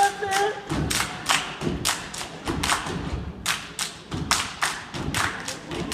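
A step team stomping on the stage floor and clapping in a fast, driving rhythm of sharp hits, several a second. A short rising shouted call is heard at the very start.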